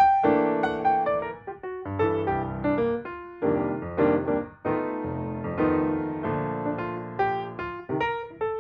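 Background music played on piano: struck notes and chords that ring and fade, one after another.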